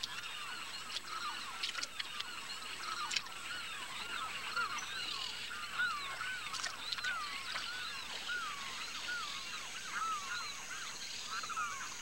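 A flock of wetland birds calling together: many short notes that each rise and fall in pitch, overlapping continuously, with a few faint ticks among them.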